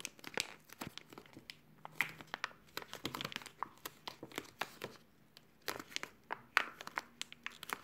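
Plastic zipper bag crinkling and crackling in irregular sharp clicks as a bag stuffed thick with sticker sheets is squeezed and pressed shut.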